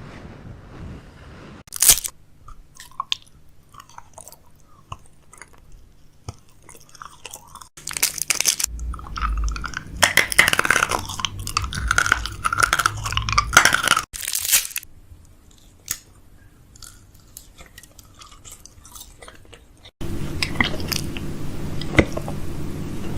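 Close-up chewing and crunching of food, with sharp crunches and a louder, denser stretch of chewing through the middle, quieter after it.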